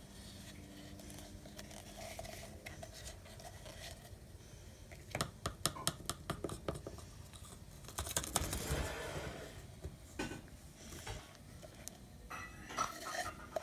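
A paintbrush scraping paint out of a cut-open plastic paint tube and knocking against a plastic cup: a quick run of sharp clicks about five seconds in, then a longer crinkly scrape a few seconds later, with a few more clicks after.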